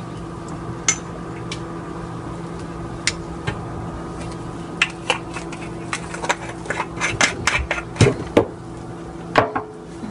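A metal spoon clinking and tapping against spice containers and the rim of a pressure cooker as spices are spooned in. The taps are irregular, scattered at first and coming thick and fast in the second half, over a steady low hum.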